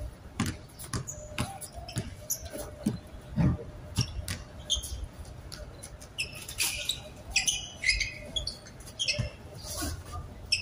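Basketball game on a hard outdoor court: the ball thuds irregularly as it is dribbled and bounced, and sneakers squeak sharply on the court surface, most thickly about two thirds of the way through.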